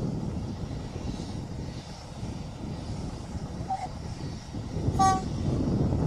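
Class 33 'Crompton' diesel locomotive hauling a train at a distance, a low rumble throughout, with one short toot of its horn about five seconds in.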